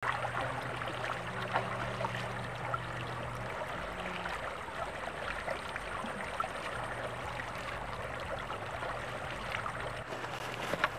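Running water: a stream flowing over rocks and water pouring steadily from a pipe outlet, with a faint low steady hum underneath.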